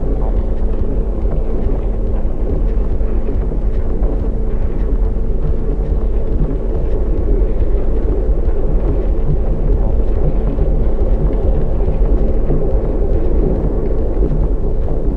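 Passenger train running at speed, heard as a steady low rumble with a constant droning hum.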